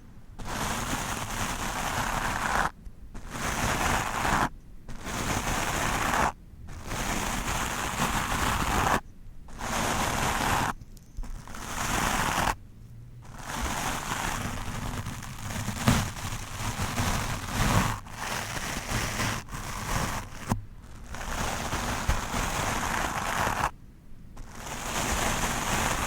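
A stiff wooden brush scraping roughly over a microphone, a crackly rasp in strokes of about two seconds, each broken off by a brief pause.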